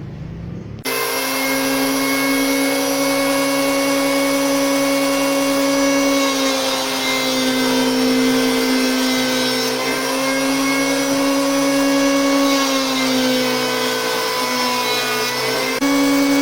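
Electric power planer, mounted as a homemade jointer, running at full speed with a steady high whine and hiss, starting suddenly about a second in. Its pitch sags slightly a few times, as when the cutter takes wood, and rises again near the end.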